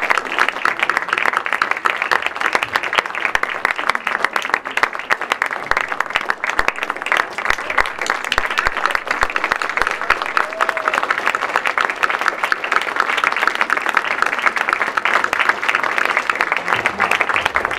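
Audience applauding: a dense, steady patter of many hands clapping that keeps up without a break.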